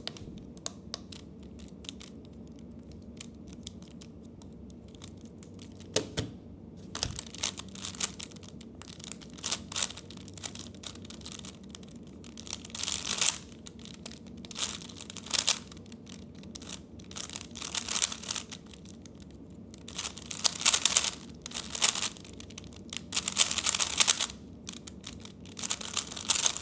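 3x3 Rubik's cube being turned fast in a speedsolve: the plastic layers click and rattle in quick bursts, sparse for the first few seconds, then denser and louder in the second half.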